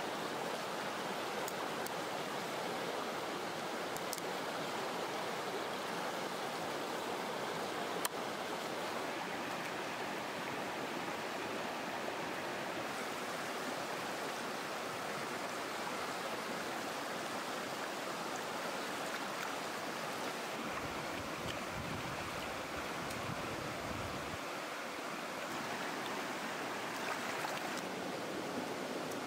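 Running stream water flowing steadily. There is a single sharp tap about eight seconds in, and a low rumble for a few seconds past the middle.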